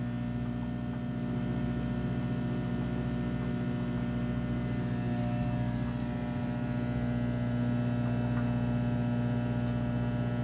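Emerson microwave oven running while it cooks, a steady electrical hum.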